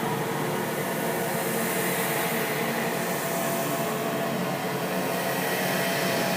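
A steady, noisy drone with a few faint held tones underneath, unchanging throughout: a dark ambient horror sound effect.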